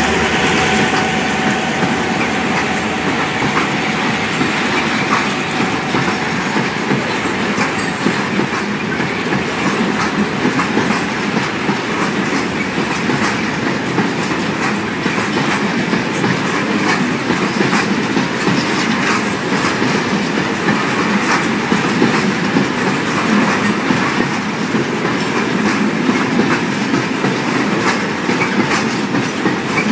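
Freight train wagons rolling past at steady speed, the wheels clattering with a constant stream of clicks as the cars go by.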